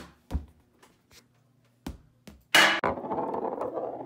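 Cue tip strikes a pool ball, followed by several sharp knocks of the ball bouncing. About two and a half seconds in comes the loudest knock, then a steady rumbling roll of the pool ball along a wooden surface.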